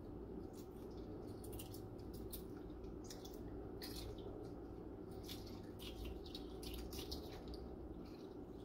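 Cracked shells being peeled by hand off hard-boiled eggs in a bowl of cold water: an irregular run of small, crisp crackles and clicks as the shell breaks away, with light wet squishing.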